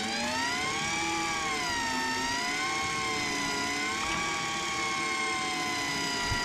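Electric fishing reel's motor whining as it winds against a heavy fish, its pitch slowly sagging and rising as the strain changes.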